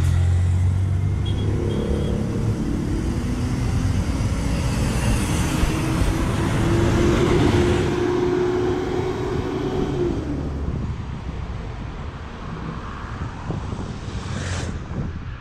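Diesel city bus idling, then pulling away: its engine note rises as it accelerates and fades as it drives off, over street traffic. Two short high beeps sound about a second and a half in.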